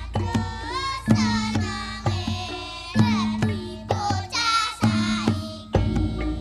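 Javanese gamelan (karawitan) playing jaranan music: struck bronze instruments ring on a steady beat with hand-drum strokes. Singing voices glide over it twice.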